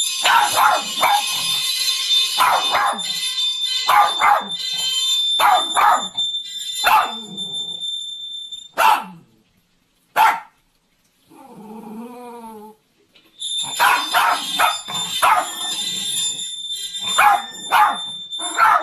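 A dog barking in quick, repeated barks over a steady high-pitched tone. The barking breaks off about halfway through for a short wavering whine, then starts again over the same tone.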